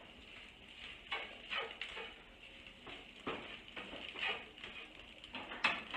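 Spatula stirring and scraping scrambled eggs around a frying pan on the stove, in short irregular strokes, several a second.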